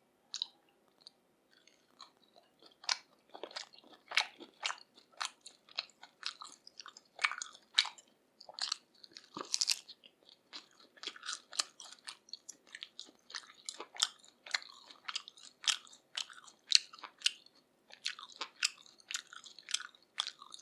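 Close-miked chewing of grilled pork in a sticky spicy Korean sauce: wet mouth clicks and smacks, about two or three a second, with an occasional crunch.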